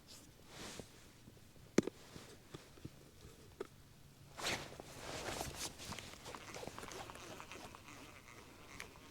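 Rustling and clicking of a person moving about and handling gear. There is a sharp click nearly two seconds in and a longer rustle about four and a half seconds in.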